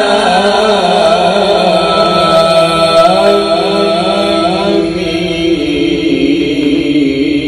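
A male Quran reciter chanting tilawat in one long melodic phrase. He holds sustained notes with wavering ornaments, and his voice drops to a lower held note about five seconds in.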